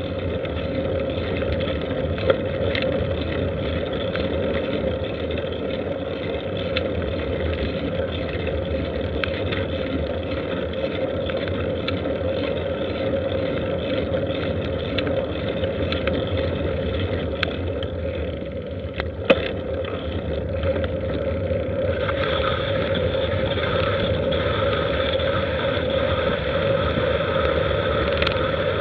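Steady rumble of wind and motion noise on a moving action camera's microphone, with two sharp clicks, about two seconds in and about two-thirds of the way through. The noise grows slightly louder and brighter near the end.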